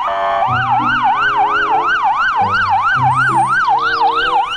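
Police car siren in a fast up-and-down yelp, about three sweeps a second, with a fainter second siren wailing under it. Background music plays beneath.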